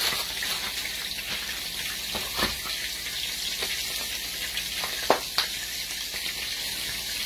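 Cube steak frying in vegetable oil in a skillet on high heat: a steady crackling sizzle. A few light knocks come through it, one about two and a half seconds in and two around five seconds.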